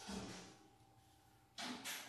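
A pause in a contemporary chamber-music piece: the last violin note dies away into near silence, then about one and a half seconds in come two short airy hisses from the ensemble, a noise without a clear pitch.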